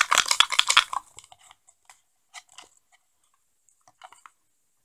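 Typing on a laptop keyboard: a fast run of key clicks for about the first second, then a few scattered single clicks.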